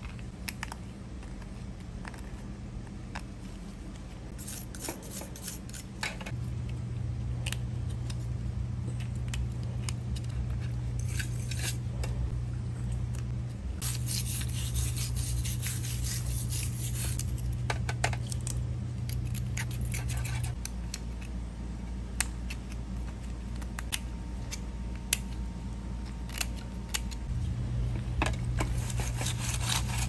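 Scraping, rubbing and light clinking as old paint is worked off metal lock hardware, in short scratchy passages with scattered sharp clicks, over a steady low hum that steps up and down in level a few times.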